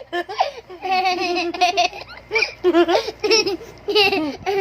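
A young child's high-pitched laughter and squeals, in several short runs.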